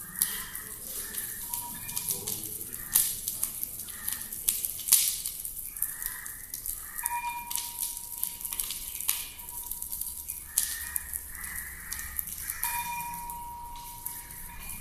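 Fire crackling and sizzling in a brick homa fire pit, with sharp pops throughout, the loudest about three and five seconds in. A thin steady tone comes in about seven seconds in and again near the end.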